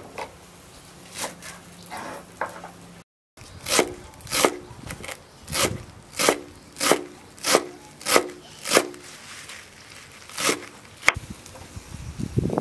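Large kitchen knife chopping fresh parsley on a thick wooden board. A few soft cuts give way to a run of evenly spaced strikes, about two a second, each a sharp knock with a short woody ring. One more strike follows after a pause.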